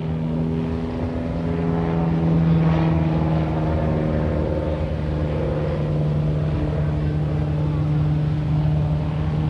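Piper J-3 Cub light airplane flying overhead, its engine and propeller droning steadily, swelling slightly a couple of seconds in.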